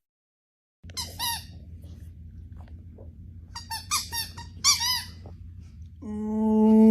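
Several bursts of short, high-pitched squeaks, then a long howling call starting about a second before the end, most likely a dog howling.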